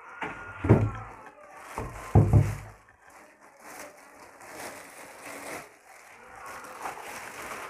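Clear plastic wrapping crinkling and rustling as a chainsaw is handled and unwrapped. Two heavy thumps come about a second in and again at about two seconds.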